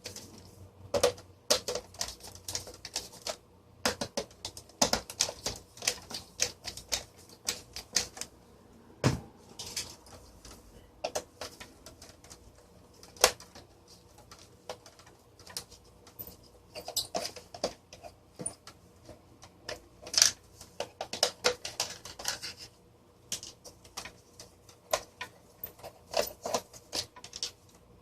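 Irregular clicks, taps and small rattles of hand tools against a plastic desk-fan housing as it is unscrewed and taken apart.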